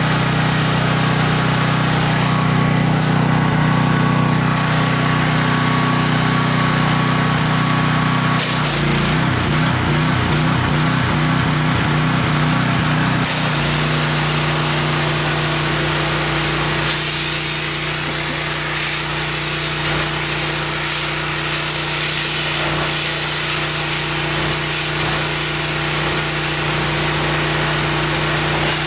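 Pressure washer running, its water jet hissing against log walls. The machine's pitch wavers for a few seconds before settling into a steady hum about halfway through, and the spray hiss gets stronger soon after.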